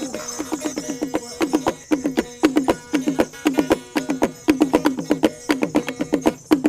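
T'boli traditional instrumental music: rapid runs of sharply struck, quickly fading pitched notes with a woody, percussive attack, played in fast repeating clusters.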